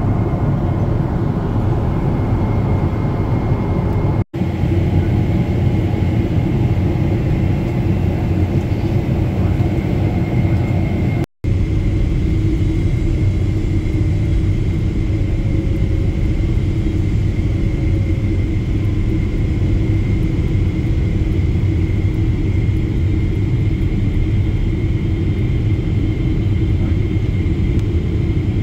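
Steady cabin rumble of a Boeing 777-300ER heard from a window seat beside its GE90 engine during the descent and approach: engine and airflow noise with a faint steady high tone. It drops out twice for an instant at edit cuts, about four and eleven seconds in.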